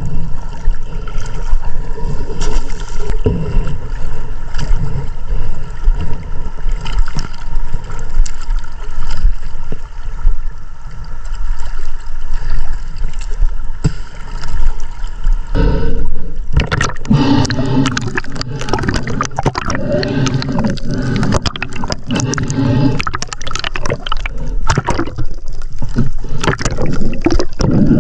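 Water sloshing and gurgling around an action camera carried at the surface by a swimming snorkeler, with a few faint steady tones under it. From about 16 seconds in, the splashing turns louder and rougher.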